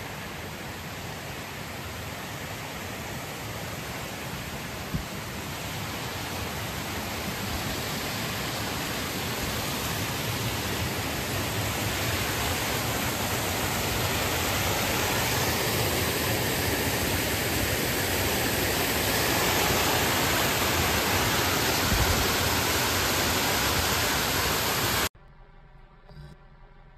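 Rushing water of a small mountain waterfall cascading over rock, a steady hiss that grows gradually louder and then cuts off suddenly near the end.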